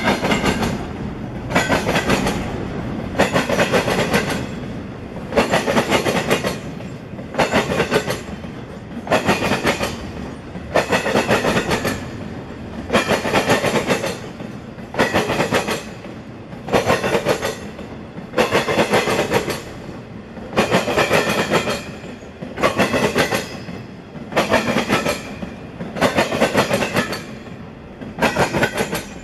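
Double-stack intermodal container train rolling steadily past, its wheels clattering over the track in regular bursts about every two seconds as each car's wheel sets go by, over a continuous rumble.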